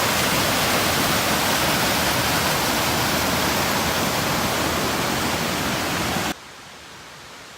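Steady, loud rush of falling water from a mountain cascade, cutting off abruptly about six seconds in to a much quieter hiss.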